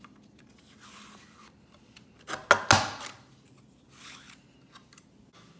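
Stampin' Up! Delicate Tag Topper punch cutting the end of a cardstock strip: two loud snaps about a third of a second apart, between soft rustles of the card against the punch.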